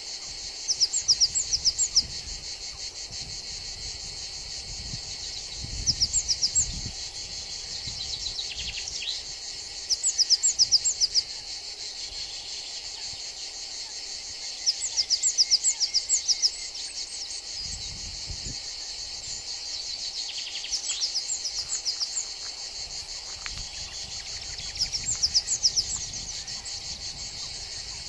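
Steady high-pitched insect trilling, with louder bursts of rapid, sharp high chirps about every four to five seconds, each burst lasting a second or two. A couple of short falling notes are heard in between.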